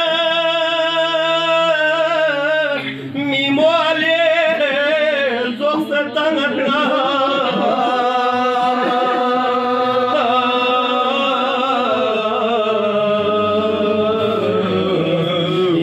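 Male voice chanting a Balti marsiya, a Muharram elegy, unaccompanied, in long, wavering held notes.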